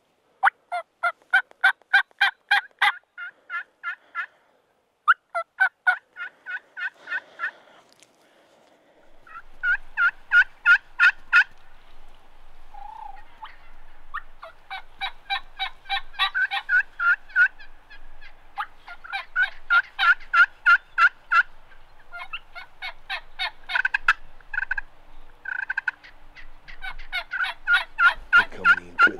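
Wild turkey hen yelping and cutting: loud, excited runs of rapid, sharp notes, about six a second, coming in repeated bursts with short pauses between them.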